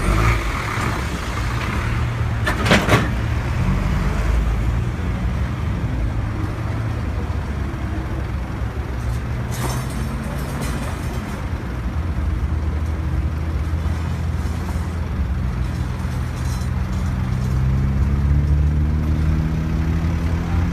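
Vehicle engines running steadily in street traffic, a deep engine note rising near the end as a vehicle speeds up. A sharp knock sounds about three seconds in.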